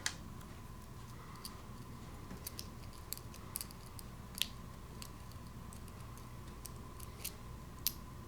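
Small irregular metal clicks of a lock pick working the pin tumblers of a 40 mm Master Lock padlock under tension, spaced unevenly over several seconds, with a couple of sharper clicks around the middle and near the end.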